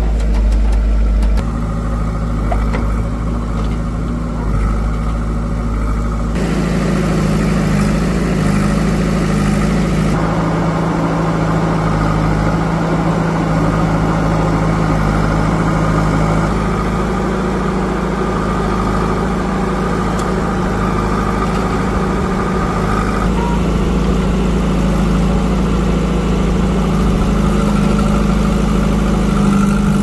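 Diesel engine of farm or earth-moving machinery running steadily, with its sound changing abruptly about six and ten seconds in.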